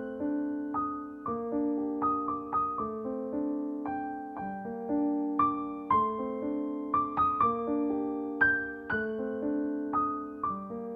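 Background piano music: a slow melody of single struck notes, each ringing out and fading.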